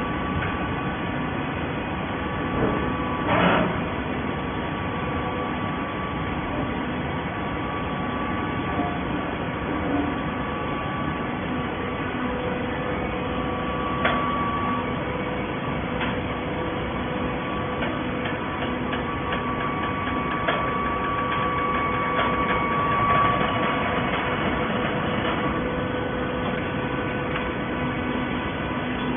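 Hydraulic scrap carton baler running: a steady machine hum with several steady whining tones, scattered clicks, and a louder clatter about three seconds in.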